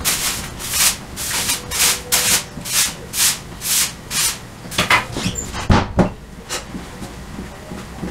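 Bristle broom sweeping a tiled floor in short, brisk strokes, about two a second, stopping about halfway through. A few scattered knocks and thumps follow.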